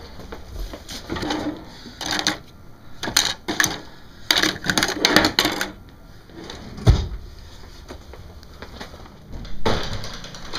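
Rummaging through kitchen drawers and cabinets: a run of clatters and knocks, with one heavy thump about seven seconds in.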